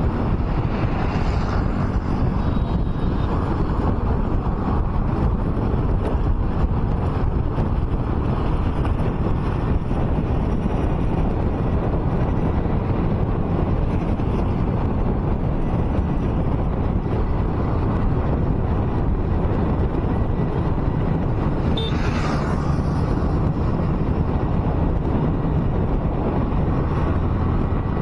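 A car driving along a highway: a steady low rumble of road and engine noise with wind buffeting the microphone. A brief, sharper sound stands out about three-quarters of the way through.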